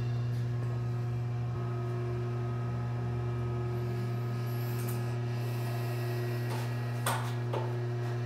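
Steady low hum of an electric motor running in a machine shop, with two light metal clinks about seven seconds in.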